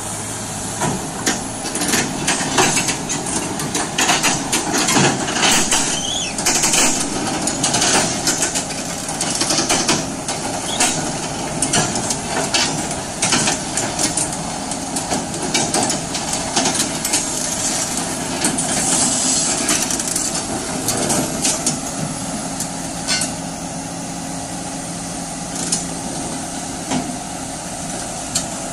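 Komatsu hydraulic excavator's diesel engine running steadily while its steel crawler tracks clank and knock over and off the flatbed truck deck, with repeated sharp metal impacts through most of the stretch. The clanking dies away a few seconds before the end, leaving the engine running.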